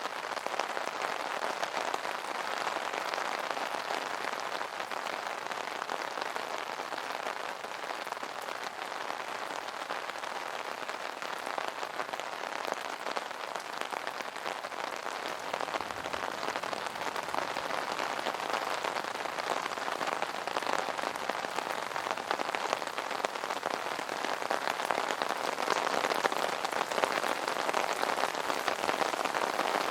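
Rain falling on an umbrella canopy: a dense, steady stream of small drop hits, growing slightly heavier near the end.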